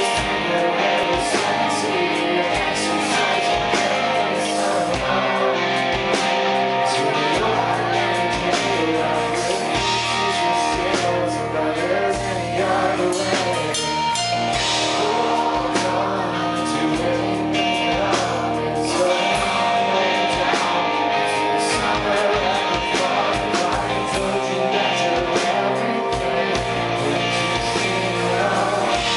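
Live rock band performing, with a male lead singer singing into a microphone over the band.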